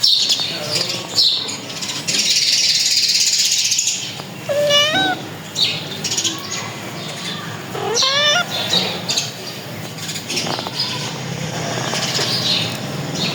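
Birds chirping in short high notes, with two longer wavering calls about five and eight seconds in. A burst of hiss sounds between about two and four seconds in, over a steady low hum.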